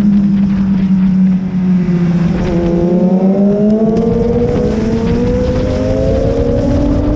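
BMW S1000RR inline-four engine at speed on track: the engine note falls slightly as the bike slows, then from about two and a half seconds in climbs steadily as it accelerates under throttle.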